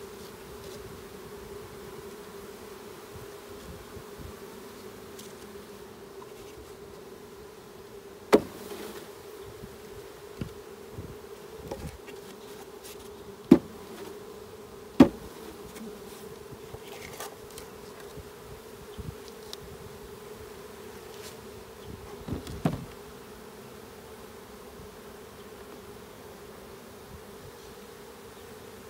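Honeybee swarm humming steadily, a dense drone from the mass of bees at the hive box. A few sharp taps stand out partway through, the loudest two close together about halfway.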